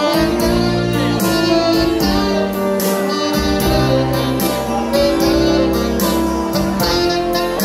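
Dance band playing an instrumental passage of party dance music, with a steady beat and a strong bass line under held notes.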